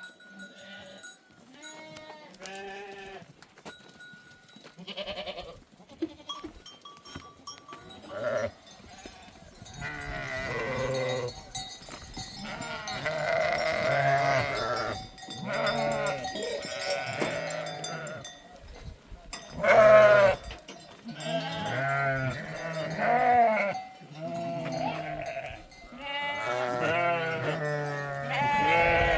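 A flock of sheep and goats bleating, many calls overlapping, with small bells tinkling among them. The calling grows denser and louder from about ten seconds in.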